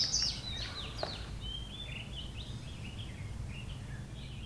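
Small birds chirping in short, scattered high calls over a faint steady low hum, with a single faint click about a second in.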